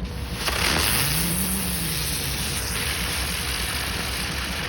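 Small ground firework hissing steadily as it sprays sparks, starting about half a second in and dying away near the end.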